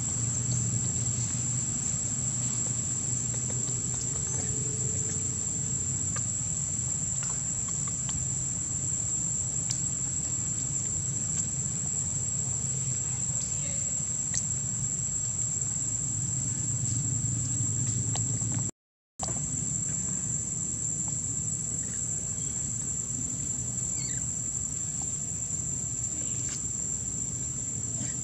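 Steady, high-pitched drone of insects holding one unchanging tone, over a low rumble. All sound cuts out for about half a second partway through, then the drone resumes.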